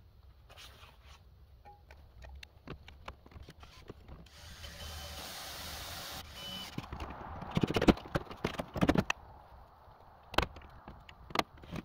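Cordless drill running for a couple of seconds while driving a screw to fasten a mounting bracket to steel barn siding, followed by several loud, sharp clattering clicks and knocks.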